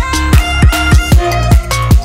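Background electronic dance music: a heavy, deep bass drum hitting about three times a second under synth notes.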